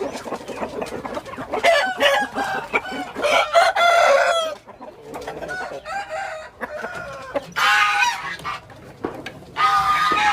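Gamefowl roosters crowing, with chickens clucking in between. There are several long crows, one at about four seconds in, another near eight seconds, and one at the end.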